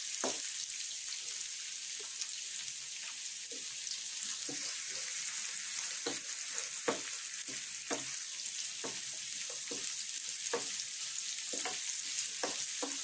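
Sliced onions sizzling in hot oil in a kadai, being fried until brown. A spatula scrapes and knocks against the pan every second or so as they are stirred.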